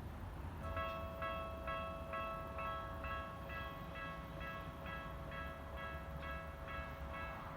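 Japanese railway level-crossing warning bell starting up about half a second in and dinging steadily about twice a second, signalling that a train is approaching, over a low background rumble.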